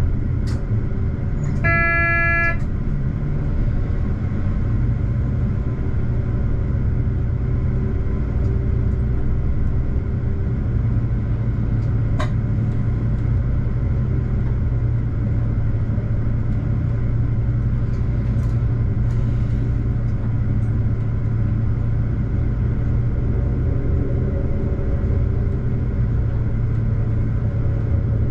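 Regional train running along the track with a steady low rumble while it slows from about 100 to 40 km/h on its approach to the station. A single short horn toot sounds about two seconds in, and a couple of sharp clicks come through.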